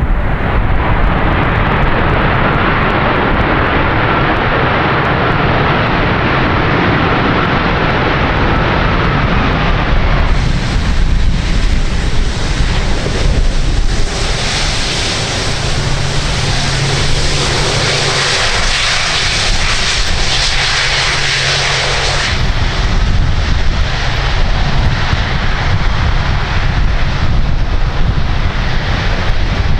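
Jet airliner engines running loudly as the aircraft comes in to land, with a faint whine slowly dropping in pitch. A sharper, higher hiss comes in suddenly about ten seconds in and cuts off just as suddenly about twenty-two seconds in.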